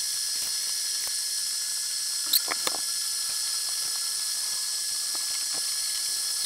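Steady background hiss, with a few small clicks a little over two seconds in from a plastic key fob and its shell being handled.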